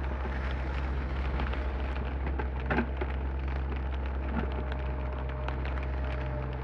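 Komatsu PC30 mini excavator running steadily, a low engine drone with a faint steady tone above it. Many small ticks of rain run through it, and there is one louder clank about three seconds in.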